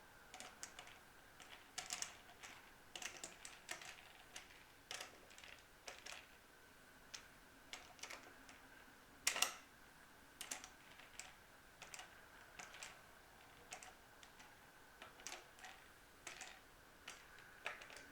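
Irregular light clicks and taps of screws being worked into a Vibramate mounting plate on an electric guitar body, with one louder knock about nine seconds in. One screw is not going in easily, which the installer puts down to a part being out of alignment.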